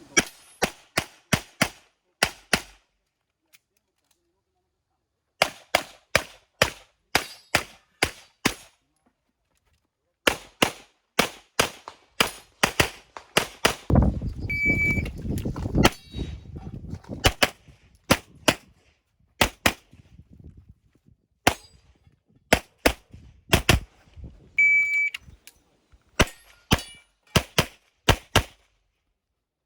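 Strings of handgun shots fired in quick succession during IPSC stage runs, mostly in fast pairs and rapid sequences. A shot timer's short high start beep sounds twice, about 15 and 25 seconds in, each followed by more shots. A low rumble comes in around the 14-to-16-second mark.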